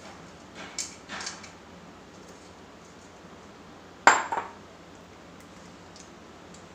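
Kitchen utensils and glass dishes clinking: two light clinks about a second in, then one sharp, loud clink with a short ring about four seconds in.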